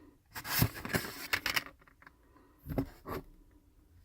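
Rustling and scraping handling noises in two spells: a longer run of scuffs in the first second and a half, then a short pair about three seconds in.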